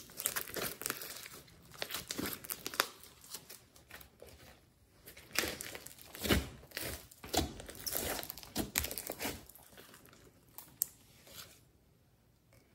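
Glossy slime being squeezed, poked and stretched by hand, giving irregular sticky crackles, pops and squelches. It falls quiet near the end.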